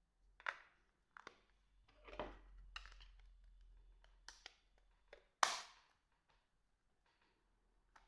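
Handling noise from a small mobile phone: quiet, irregular clicks, taps and rustles, with one sharper click-and-rustle about five and a half seconds in.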